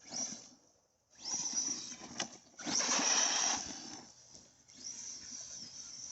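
Brushless electric motor of an Arrma Big Rock RC monster truck whining in four short bursts of throttle, the pitch rising at the start of each burst.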